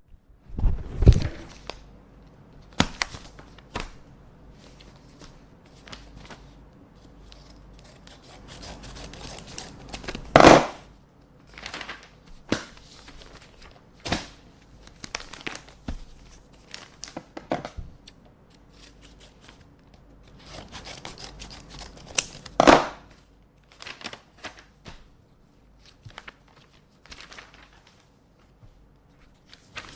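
Scissors snipping open paper envelopes, with paper rustling and sliding between the cuts. There are a few louder knocks, about a second in, around the middle and again later.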